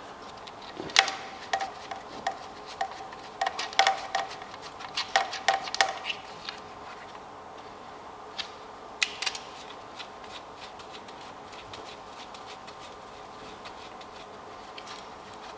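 A run of light metallic clicks and taps, some with a short ring, as a small plasma-cut blanking plate is handled and fitted against the engine block; a few more taps follow, then it goes quiet apart from a steady low background.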